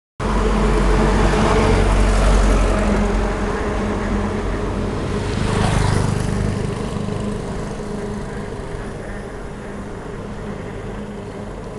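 Motor vehicle engine running close by with a steady low rumble. A vehicle rushes past about five to six seconds in, and the engine sound then slowly fades.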